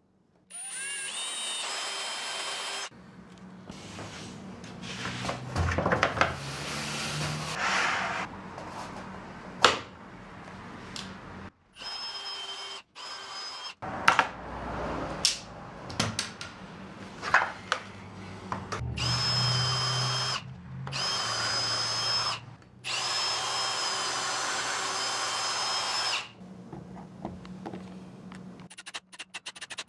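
Power drill running in short bursts, spinning up with a rising whine and then holding a steady high whine, with a few sharp knocks between runs. The sound breaks off abruptly several times.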